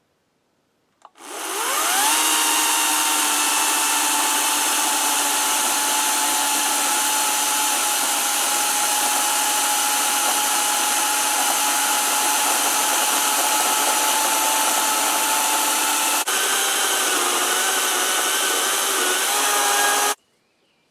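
Greenworks battery-powered chainsaw spinning up with a quick rising whine, then running steadily as it continues a cut through a large oak limb. Its pitch shifts and wavers about three-quarters of the way through, and it stops abruptly near the end.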